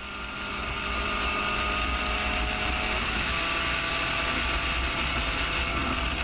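Spec Racer Ford's GEN3 engine running hard as the car accelerates down the straight to pass slower cars, heard onboard with wind noise. The sound builds over the first second and then holds steady, with a slight shift in the engine note about three seconds in.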